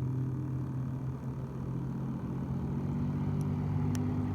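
A motor running steadily with a low, even hum; a single sharp click about four seconds in.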